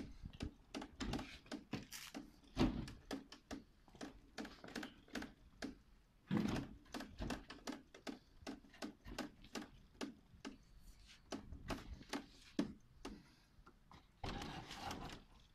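A rapid, irregular run of sharp clicks and knocks, several a second, with a longer noisy burst near the end.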